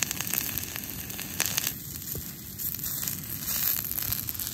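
Campfire crackling with green onions sizzling on the grill, scattered sharp pops and crackles over a steady hiss.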